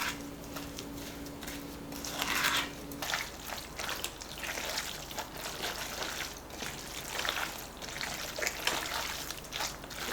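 Water trickling and pouring in uneven spurts, with splashing.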